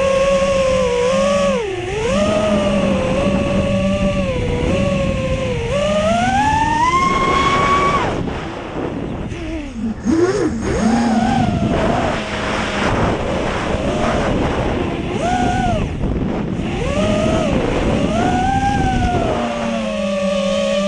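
Brushless motors of an FPV racing quadcopter whining, their pitch rising and falling as the throttle changes. About seven seconds in the whine climbs sharply, then drops away into a rush of wind noise before the motors pick up again.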